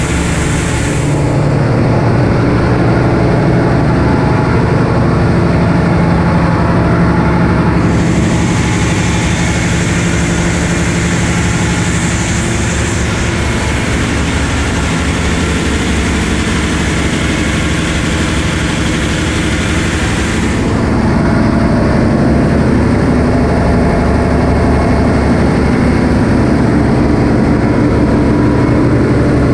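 Large marine diesel engines running steadily in a ship's engine room: a loud, constant low drone. A higher hiss joins for a stretch in the middle.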